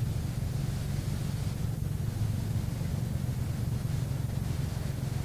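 Steady low hum with even hiss and no distinct events: background noise of an old videotape recording.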